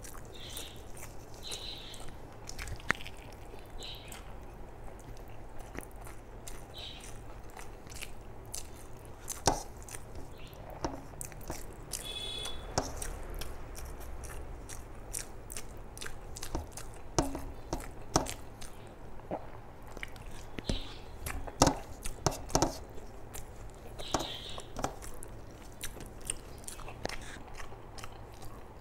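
A person chewing rice and curry close to the microphone, with wet lip-smacking and many irregular sharp mouth clicks.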